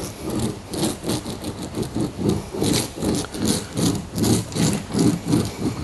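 A metal fibreglass roller being worked back and forth over resin-soaked glass mat on a timber panel, making quick, even rubbing strokes, a few each second. It is rolling the resin into the mat to press out the air bubbles.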